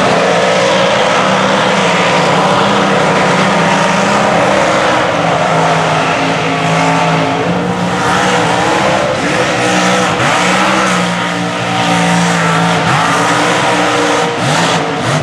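Supercharged big-block mud truck engine running at high revs, the pitch dipping and climbing again several times in the second half, as the spinning tyres churn through deep mud with a constant hiss of spray.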